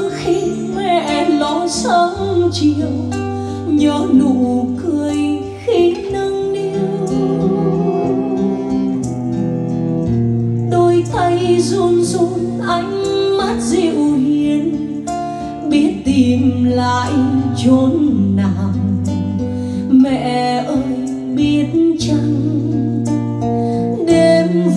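Music: a woman singing with a wavering, vibrato-laden voice over plucked guitar and long held bass notes.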